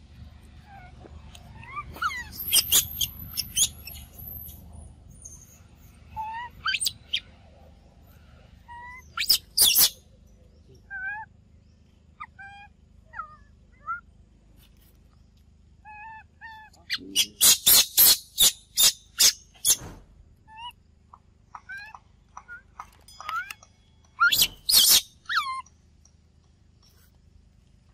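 Baby macaque crying: four bursts of shrill, rapid screeching, the longest about two-thirds of the way through, with short rising chirps scattered in between.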